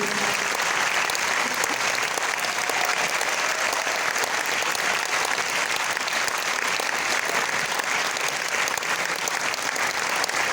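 An audience applauding steadily after a song ends.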